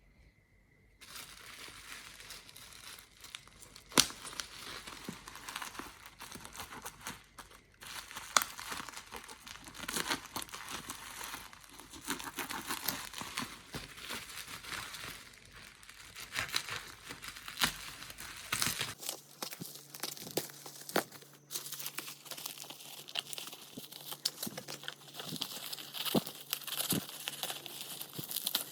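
Product packaging being unwrapped by hand: plastic wrap crinkling and tearing, with occasional sharp taps and clicks as the box is handled.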